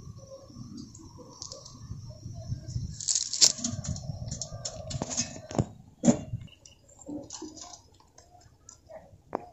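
Cast net being handled and gathered up: its chain of metal sinkers clinking and jangling in irregular clicks, loudest a few seconds in, with the mesh rustling.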